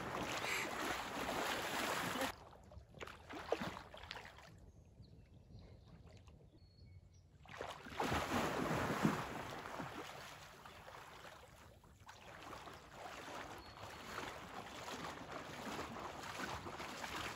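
Lake water splashing and sloshing as people and a dog wade and swim through it, louder in the first two seconds and again about eight seconds in.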